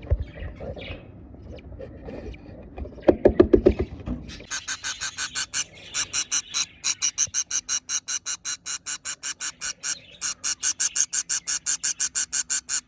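Rustling and knocking at a wooden nest box, then budgerigar chicks begging: a fast, even run of raspy high-pitched calls, about four to five a second, starting about four seconds in and pausing briefly near ten seconds.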